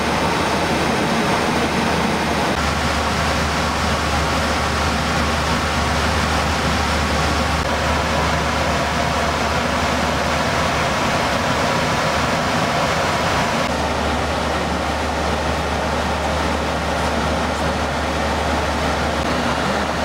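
Steady cockpit noise of a Boeing 737 in cruise: a constant rush of airflow and air-conditioning with a low hum underneath, which changes slightly in level twice.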